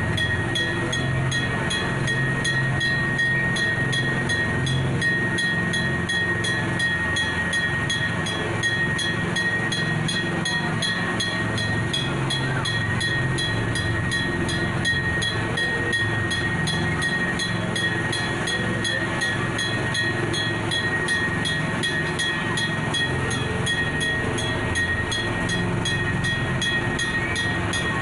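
A small amusement-park ride train running, heard from a seat in its open carriage: a continuous rumble with a constant high whine running through it.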